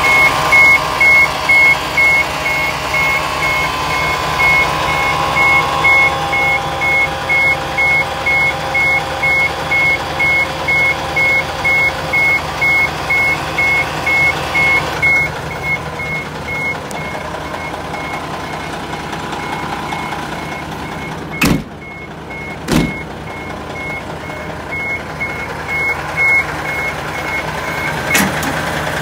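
Truck reversing alarm beeping over and over, about one and a half beeps a second, fading somewhat in the second half, over a low engine hum. Two sharp knocks come a little past two-thirds of the way through.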